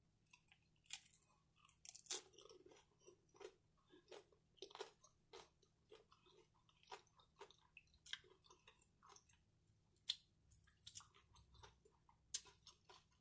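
A person chewing a mouthful of cheese-topped shrimp tortilla-chip nacho: irregular crunches and mouth clicks, a little over one a second.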